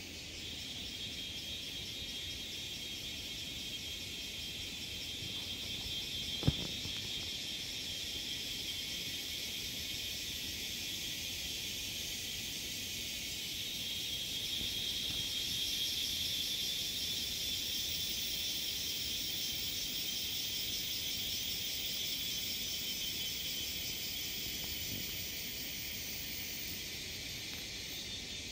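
Steady, high-pitched insect chorus, trilling and buzzing, swelling slightly past the middle. A single sharp click about six and a half seconds in.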